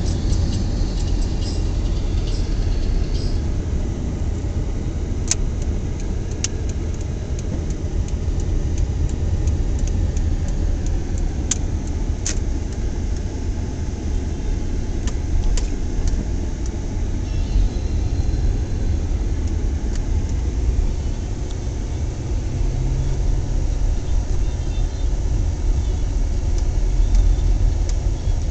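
Steady low rumble of a car's engine and road noise, heard from inside the cabin while driving, with a few sharp clicks scattered through the middle.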